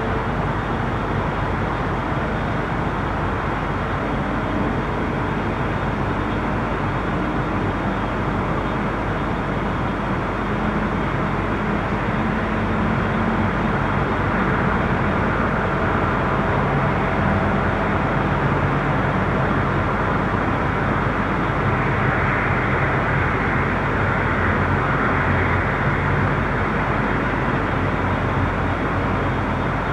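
Night-time street traffic: a steady wash of tyre and engine noise from passing vehicles, swelling a little louder and brighter through the second half as traffic passes closer.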